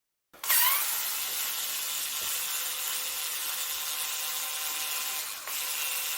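Cordless electric screwdriver spinning up about half a second in and then running steadily, driving a screw on the e-bike's hub motor casing, with a brief break near the end.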